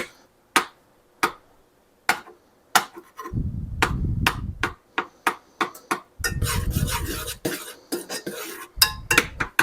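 Kitchen utensils and cookware clinking and knocking: many short sharp clinks spread through, with three longer low rumbling stretches, about a third of the way in, about two-thirds in and near the end.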